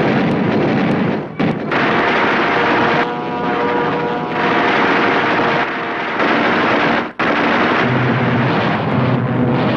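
Air-combat soundtrack of fighter aircraft machine-gun fire over running aircraft engines, loud and dense. It breaks off sharply twice, about one and a half seconds in and again about seven seconds in.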